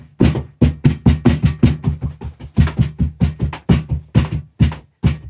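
Background music with a fast, steady electronic drum beat, about four beats a second, over a repeating bass line.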